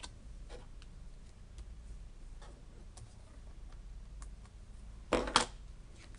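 Faint taps and rustles of a paper card and small craft items being handled on a stamping platform. A louder short double knock or scrape comes about five seconds in.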